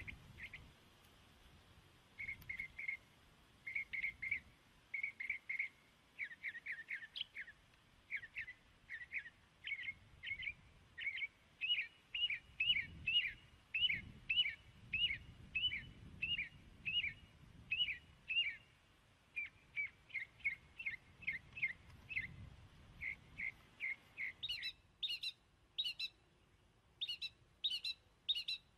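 Computer keyboard typing: a steady run of short key clicks, two or three a second, in bursts with short pauses. The clicks get sharper and brighter near the end.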